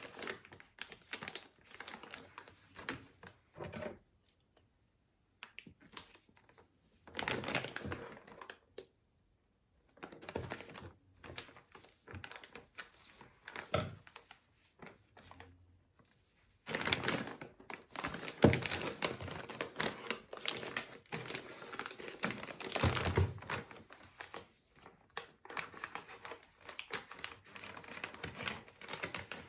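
Plastic crinkling and rustling with irregular sharp clicks, as the tag gun and its packaging are handled; the sound pauses between about four and ten seconds in, then gets busier from about seventeen seconds in.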